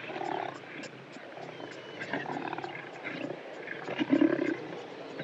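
Lions growling and groaning at close range, well-fed animals after a meal, in several short low rumbles with the loudest growl about four seconds in.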